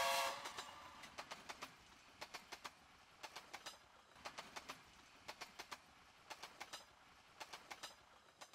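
The tail of a train whistle sound effect dies away in the first moment. Then comes a faint, rhythmic clickety-clack of train wheels over rail joints, in clusters of about four clicks once a second, fading out near the end.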